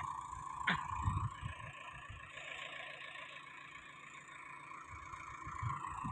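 Sonalika tractor's engine running steadily with a whining tone, somewhat fainter in the middle and stronger again near the end, with a few low thumps about a second in.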